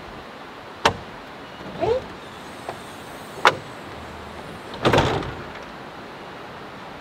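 Volkswagen Vanagon Westfalia pop-top roof being unlatched and pushed up: a sharp click about a second in, a short squeak near two seconds, another sharp click around three and a half seconds, and a louder, longer clunk about five seconds in.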